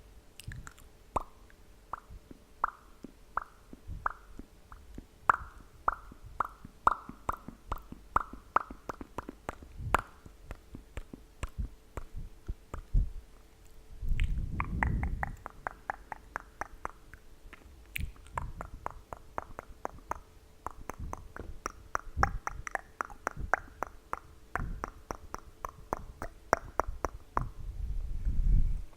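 Tongue clicking close to an ASMR microphone: sharp, hollow clicks, spaced out at first and then coming several a second. A loud breath hits the mic about halfway through, then another fast run of clicks follows.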